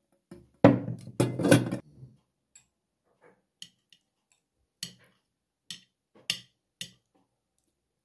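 A loud clatter of crockery lasting about a second, then several sharp single clinks of a metal fork against a ceramic plate.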